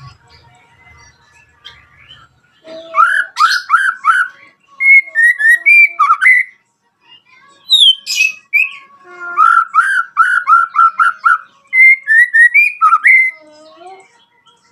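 White-rumped shama (murai batu) singing: a long phrase of rapid, loud whistled notes begins about three seconds in, and after a short pause a second, longer phrase follows.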